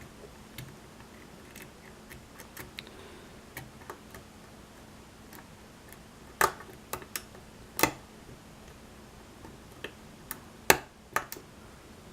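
Small metallic clicks and taps of a lock pick working the pins of a pin-tumbler lock under tension. The pins are heavily serrated. The clicks come irregularly, faint at first, with a few sharper, louder clicks from about six seconds in.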